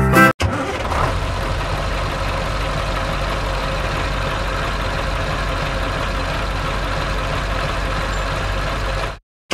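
Truck engine idling steadily, a sound effect laid over the footage rather than anything the toy makes. It cuts in about half a second in and cuts off abruptly just before the end.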